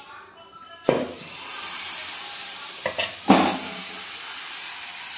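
Pitha batter sizzling on a hot non-stick tawa. The sizzle starts suddenly about a second in as the batter is poured from a ladle and then holds steady. Two short knocks, a little after three seconds in, come from the utensils.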